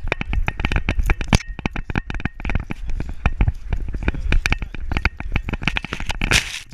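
Rapid, irregular clicking and rattling picked up by a camera on a beagle's harness as the dog walks on a chain leash: the chain and tags knocking against the harness mount, over a low rumble of handling noise.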